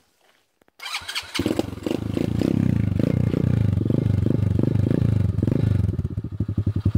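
Beretta 125 cc mini cross pit bike's single-cylinder engine starting about a second in, catching at once and running unevenly with its pitch rising and falling, then settling into a steadier idle near the end.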